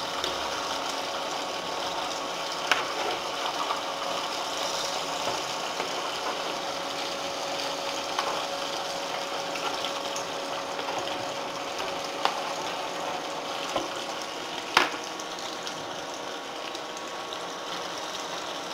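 Boiled taro root slices sizzling and bubbling steadily as they deep-fry in hot oil in a pan. A few sharp knocks sound over the sizzle; the loudest comes about fifteen seconds in.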